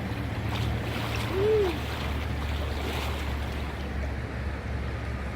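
Steady rushing noise of wind on the phone's microphone and flowing creek water. There is a short tone that rises and falls about a second and a half in.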